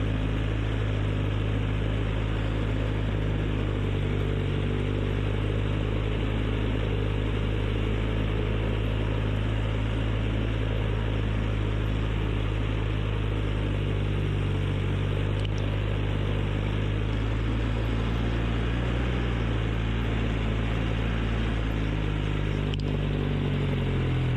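ATV engine running steadily under way, its pitch rising at the very end as it revs up.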